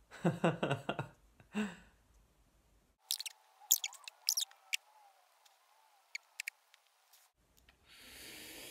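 A man's laughter played sped up, so it sounds high and chirpy: a run of chuckles in the first second, more short sharp bursts of laughing from about three seconds in, then a long breathy blow through pursed lips from near the end.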